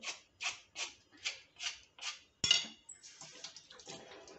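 A hand vegetable peeler scraping the skin off a sweet potato in quick even strokes, about two and a half a second, then a sharp click about halfway through, followed by fainter scraping.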